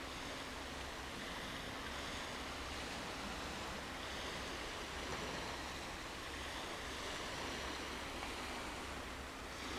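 Steady wash of small sea waves, an even hiss with no bird calls.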